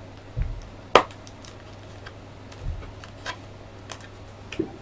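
Hard plastic parts of a dragon model kit figure clicking and clacking as it is handled. One sharp click comes about a second in, then a few softer clicks and a couple of dull low thumps.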